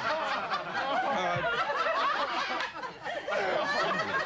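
Studio audience laughing, many voices at once, easing briefly about three seconds in.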